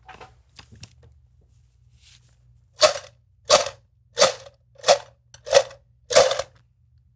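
Six sharp rattling clacks from a tin can full of pens and pencils, roughly one every two-thirds of a second, starting about three seconds in.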